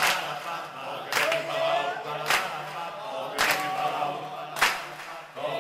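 Recorded song with a group of voices singing a chant together, and a sharp hit in the beat about once a second.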